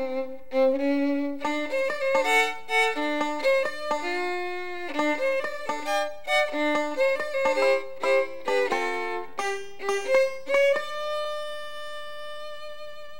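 Background music: a fiddle playing a quick tune of many short notes, settling on one long held note near the end.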